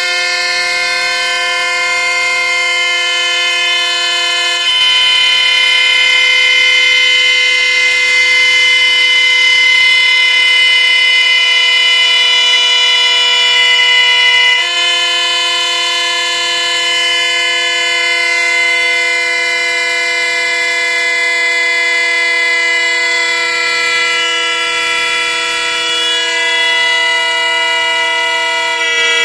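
Several small plastic toy horns taped into the neck of a big latex balloon, blowing together in a loud, steady, held chord as the air escapes through them. The chord shifts slightly about five seconds in and again about fifteen seconds in.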